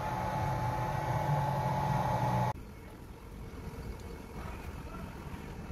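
Steady electrical hum with a high, even whine and fan-like hiss from a solar charge controller running under load. It cuts off abruptly about two and a half seconds in, leaving faint outdoor background.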